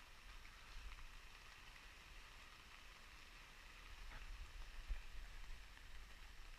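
Faint, steady hiss of rain falling on a screen house's fly sheet, heard from inside the shelter, over a low rumble.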